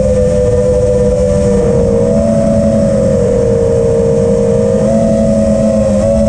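FPV racing quadcopter's T-Motor Velox V2 2207 1750 KV brushless motors spinning Ethix S3 props, a steady whine that bends up a little about two seconds in and again near the end as throttle changes, over wind rumble on the onboard GoPro Session 5's microphone.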